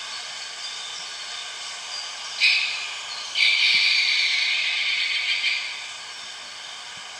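Hissing noise over a steady background hiss, part of the Archäoskop installation's soundscape: a short hiss about two and a half seconds in, then a longer one lasting about two seconds.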